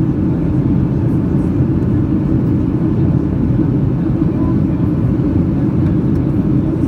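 Steady, low cabin rumble of a Boeing 737-800 in flight: jet engine and airflow noise heard from a seat by the wing inside the passenger cabin.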